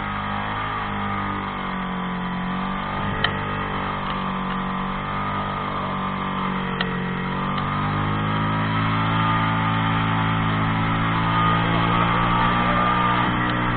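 Off-road buggy's engine running under load on a rough climb, its note wavering with engine speed and growing louder and fuller from about eight seconds in. A few sharp knocks from the chassis over bumps.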